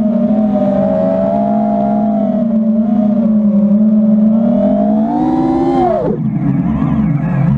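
FPV quadcopter's motors and propellers whining, the pitch swaying up and down with throttle, then dropping sharply about six seconds in as the throttle is cut.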